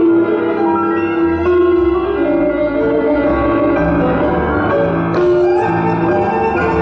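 Argentine tango music with piano and violin playing, with held melodic notes over a steady low pulse.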